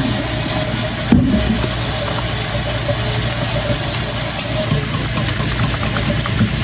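Kitchen tap running steadily, an even rushing noise with a faint hum under it.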